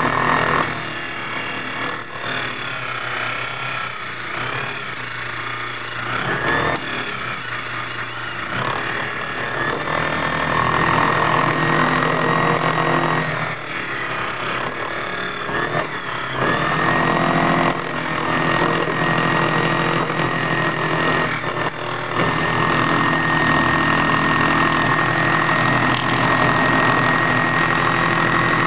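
Foley Belsaw Model 200 key duplicating machine running, its cutter grinding the notches into a WR5 key blank; the noise rises and falls as the cutter bites, louder and steadier in the second half, with a faint high whine held over it.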